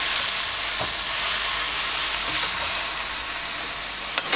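Water spinach stems and shrimp sizzling in a hot stainless steel wok, stirred and tossed with a wooden spatula that scrapes and knocks against the pan, with a sharp knock near the end.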